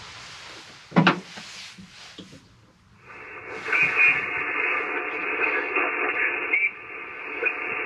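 ICOM IC-705 shortwave transceiver's speaker playing single-sideband receiver hiss and static, thin and narrow in tone, coming on about three seconds in. Before it comes on there is a faint hiss and a single knock about a second in.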